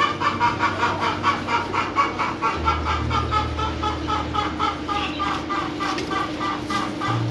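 Instrumental passage of a song: a quick, evenly repeated run of short staccato notes, about five a second, over held bass notes that change pitch a few times.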